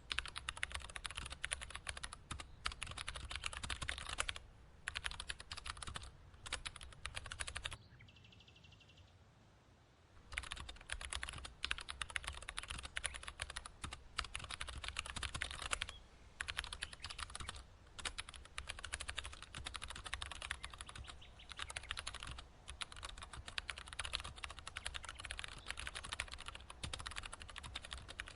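Rapid computer keyboard typing, a dense run of key clicks broken by short pauses, with a longer lull of about two seconds some eight seconds in.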